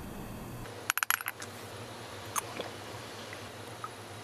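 Light clinks of a small ceramic dish and a metal spoon being set down on the counter: a quick cluster of clinks about a second in, then a single clink a little later.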